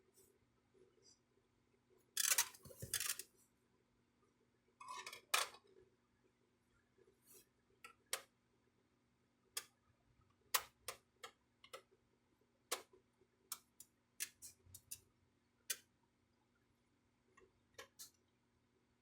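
Plastic parts of an inkjet printer being handled during disassembly: two short scraping rattles about two and five seconds in, then a string of separate sharp clicks and taps.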